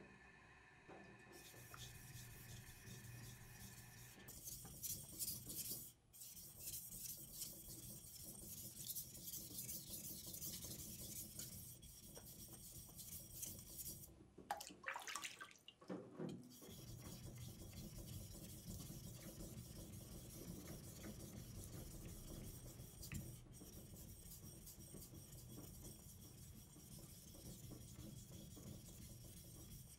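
Steel usuba knife blade rubbed back and forth by hand on a wet whetstone, a steady gritty scraping of repeated sharpening strokes. It breaks off briefly about halfway with a short louder noise, then carries on.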